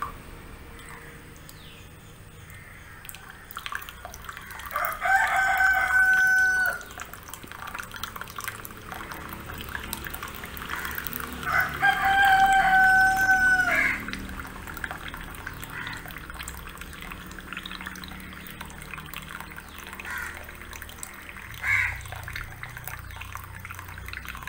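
A rooster crowing twice, each crow a held call of about two seconds, over the faint trickle of tea poured in a thin stream from a steel saucepan into a glass.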